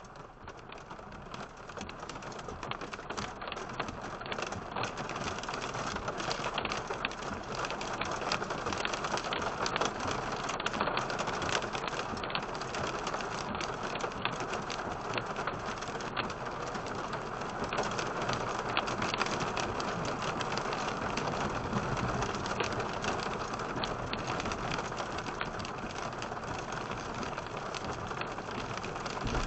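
Heavy rain pelting a vehicle, a dense patter of drops that grows louder over the first several seconds and then holds steady.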